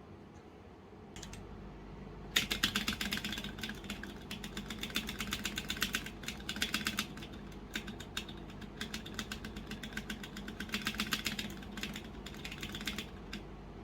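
Fast typing on a Womier K66 mechanical keyboard with stock Gateron Brown switches. Runs of rapid keystroke clicks with short pauses start about two seconds in.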